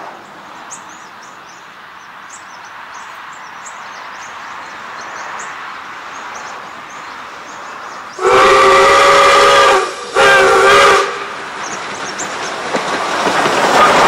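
Steam whistle of SAR 620 class Pacific locomotive 621 'Duke of Edinburgh' sounding two blasts, a long one and a shorter one, several steady tones at once. The approaching train's rumble then grows louder as the locomotive draws up close, with small birds chirping faintly before the whistle.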